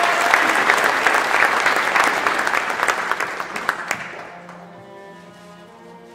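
Audience applauding, fading out after about four seconds as slow instrumental music with long held notes comes in.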